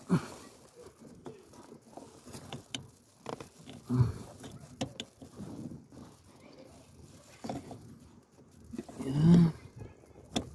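Hands working parts in the cramped space under a car's dashboard: scattered clicks and light taps. A low grunt of effort comes about nine seconds in, and it is the loudest sound.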